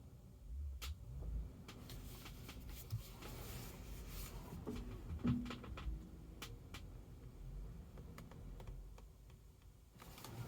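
Scattered light clicks and taps over a low rumble in a Tesla Model Y, with a brief low tone about halfway through.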